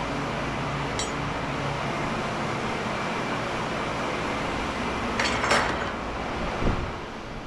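A steady mechanical hum, with a light metallic clink about a second in and a louder metal clatter about five seconds in.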